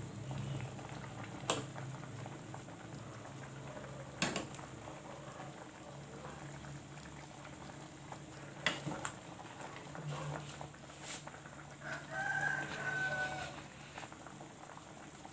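Vegetable soup simmering in a stainless steel pot while a metal ladle clinks against it a few times as it is stirred. About twelve seconds in, a rooster crows once, one held call of about a second and a half.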